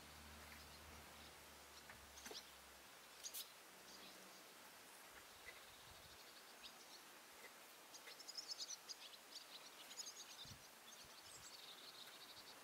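Near silence: quiet outdoor background with a few faint clicks, and faint, high, rapid chirps of a small bird in the second half.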